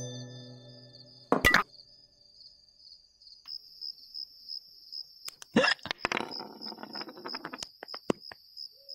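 Cartoon sound effect of crickets chirping in a steady high pulse, while a music cue fades at the start. A sharp knock comes about a second and a half in. Another knock follows a little before the six-second mark, with a short scatter of rustling, clattering ticks after it.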